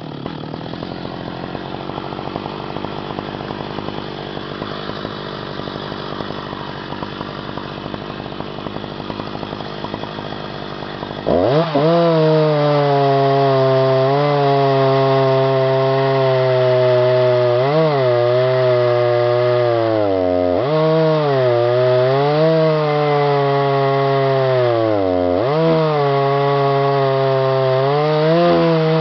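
Two-stroke chainsaw on an Alaska chainsaw mill idling for about eleven seconds, then opened up to full throttle and ripping a Scots pine log lengthwise. The engine pitch sags and recovers about four times as the chain loads up in the cut.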